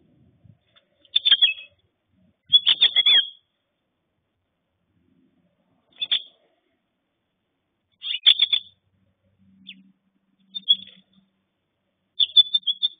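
House finch chirping in short bursts of quick notes, about six bursts separated by pauses of one to three seconds.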